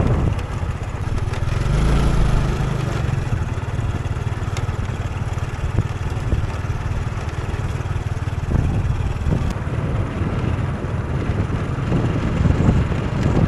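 A moving vehicle's engine running steadily, with road and wind noise.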